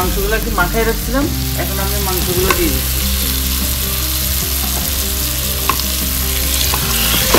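Sliced onions frying in oil in a pot, sizzling steadily, stirred with a wooden spoon at the start.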